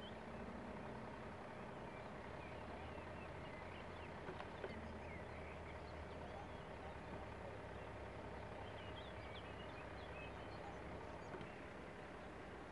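Faint outdoor ambience: birds chirping here and there over a low steady hum.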